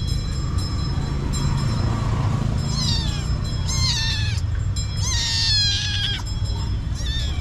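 Kitten meowing about four times, the longest call about five seconds in, over a steady low rumble.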